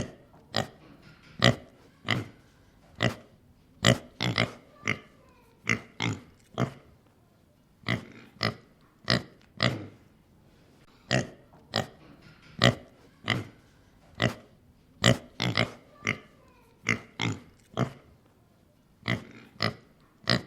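Domestic pig grunting and oinking: a long run of short, separate grunts, about one or two a second with uneven pauses, some coming in quick pairs.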